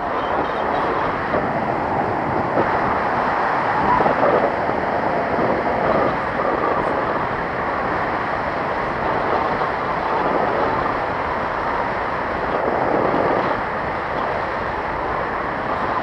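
Steady rush of airflow over a camera microphone in paraglider flight, a continuous noise with a few slight swells.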